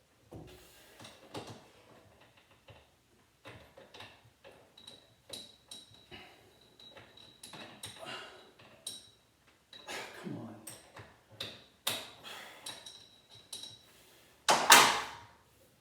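Irregular metallic clinks and knocks of a wrench and garage-door hardware being worked by hand, with a faint steady high tone partway through and one loud clatter near the end.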